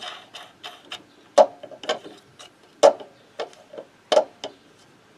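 About a dozen light metallic clicks and taps at uneven spacing from hands working at the magneto flywheel of a Motobécane AV89 moped's two-stroke engine, with three louder knocks about a second and a half apart.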